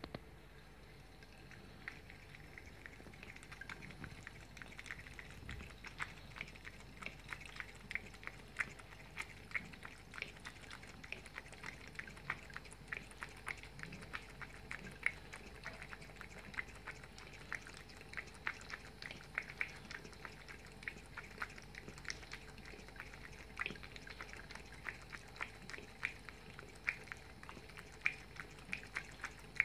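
A cat lapping water from a thin trickle running from a sink tap: quick, regular laps, about three or four a second, starting about two seconds in, over the faint trickle of the running tap.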